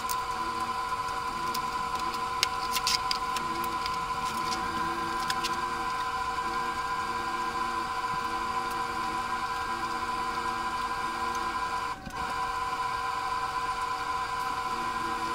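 A steady, droning mechanical hum, with a few light taps from plastic plant pots and soil being handled about three seconds in.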